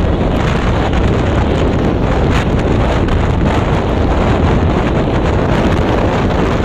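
Strong wind buffeting the microphone, a steady loud rumble over the noise of heavy sea waves.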